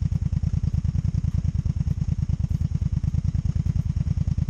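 Exhaust of a 2002 Honda Magna VF750C's V4 engine idling with a steady, rapid low pulse, heard at the exhaust on the side where the owner hears a misfire.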